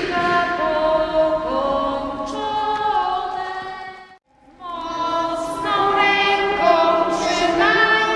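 A small group of children's voices with a woman's voice singing a song together. The singing cuts out for a moment just after four seconds in, then carries on.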